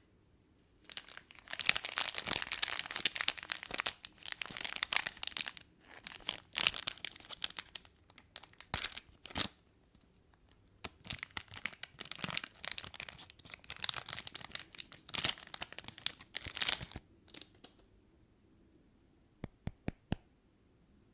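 Plastic candy wrapper being torn open and crinkled in close-up, in bursts of crackling with short pauses between, then a few sharp clicks near the end.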